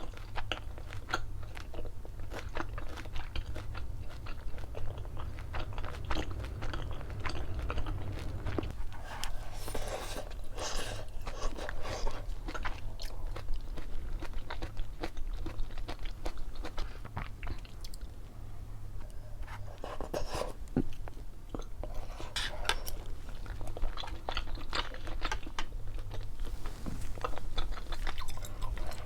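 Close-miked chewing and biting of crunchy food. Many small crunches come in clusters, with denser bouts of chewing twice.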